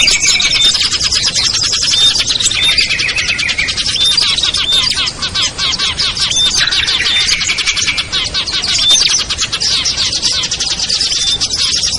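Many small songbirds calling at once in a loud, busy chatter of rapid chirps and trills, with a short high note coming back every second or two. It is a mixed-species lure recording of the kind played to draw wild small birds down.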